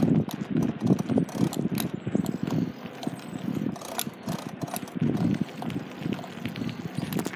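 Wheels rolling over a rough asphalt road: an uneven rumble that swells and fades, with scattered sharp clicks.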